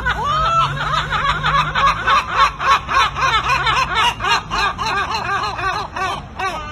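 Two gulls giving rapid laughing calls together, a fast run of short yelping notes about five or six a second with heads thrown back, loudest in the middle and tapering off near the end.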